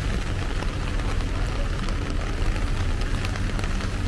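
Heavy rain of large drops pattering steadily on an umbrella, with fine scattered drop taps over a steady low rumble.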